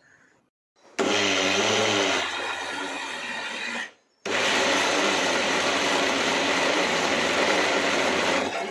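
Electric mixer grinder (mixie) grinding cooked rice with a little water into a paste. The motor starts about a second in and runs for about three seconds, stops briefly, then starts again.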